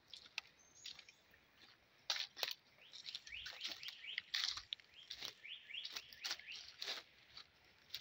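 Footsteps crunching irregularly through dry leaf litter, the loudest crunches about two and four and a half seconds in. A bird gives a quick series of short rising chirps in the middle.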